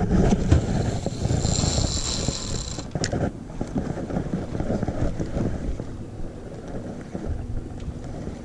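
Wind buffeting the microphone over the wash of water around a small boat, with a few sharp clicks and a thin high whine a second or two in.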